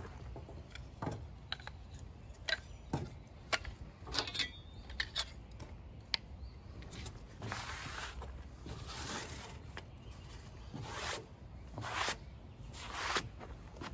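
Wooden sticks and hand tools clicking and knocking as they are gathered up off a table, then a flat board swept across the tabletop in about six scraping strokes.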